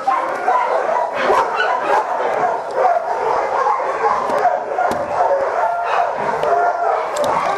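Many dogs barking, yipping and whining at once, a continuous din of overlapping calls.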